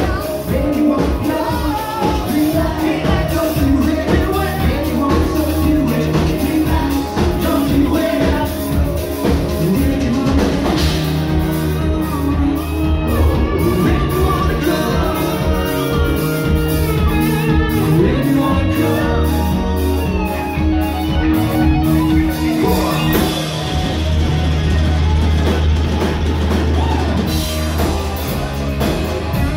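Live rock band playing loud amplified music in a large room: a lead singer over electric guitar, bass and a drum kit, with a strong, steady bass line.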